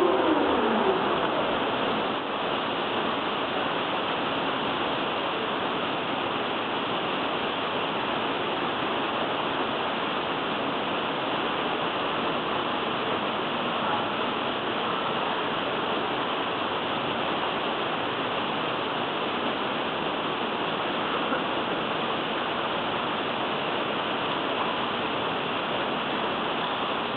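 Steady, even hiss of machine and air noise in a factory hall. Near the start, a machine's hum drops in pitch and dies away within about a second as it winds down.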